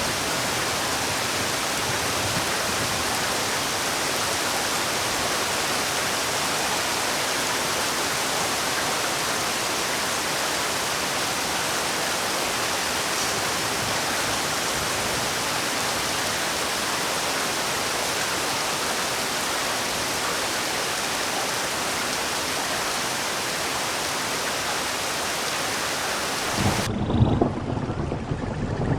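Steady, heavy rainfall, an even dense hiss. About 27 seconds in it cuts abruptly to a duller recording with an uneven, louder low rumbling.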